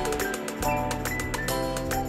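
Background music: a melody of short pitched notes over a steady beat.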